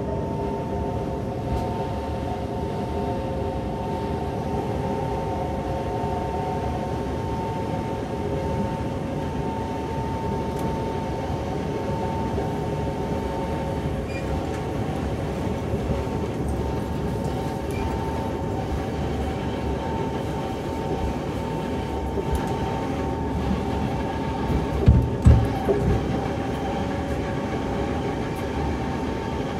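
Kawasaki C151 metro train running at steady speed between stations: a constant rumble of wheels on rail with a steady whine from the traction motors and gearing. About 25 seconds in come two heavy low thumps.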